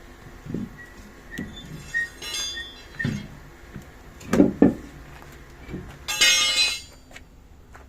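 Metal tools and parts clinking and knocking in irregular strikes, with two heavier knocks a little past the middle and a short hissing burst about six seconds in.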